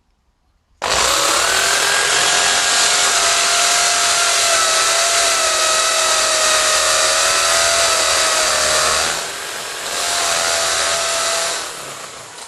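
Corded electric drill with a masonry bit boring into a wall, its motor running at full speed with a steady whine. It eases off briefly about nine seconds in, runs again, then winds down near the end.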